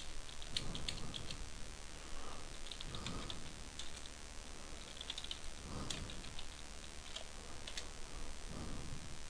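Computer keyboard being typed on in several short bursts of key clicks.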